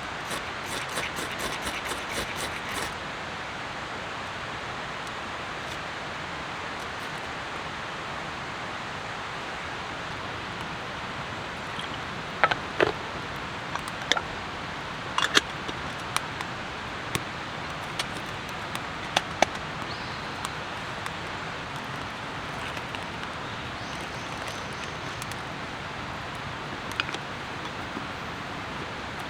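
Steady hiss of rain falling. A quick run of light clicks near the start, then scattered sharp clicks and knocks through the middle.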